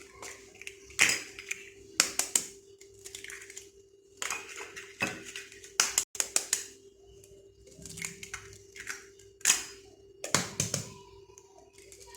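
Eggs being cracked on the edge of a bowl: a series of sharp taps and shell cracks with short pauses between them, over a faint steady hum.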